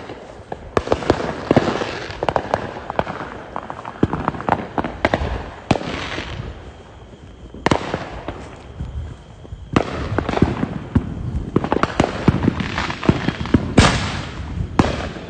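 Fireworks going off in rapid, irregular volleys of sharp bangs and crackling pops. There is a quieter lull around the middle, and one of the loudest bangs comes near the end.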